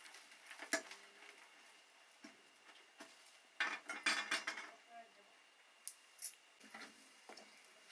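Steel ladle clinking and scraping against a steel kadai and stainless steel pots: a few separate clinks, with a busier run of clatter about halfway through.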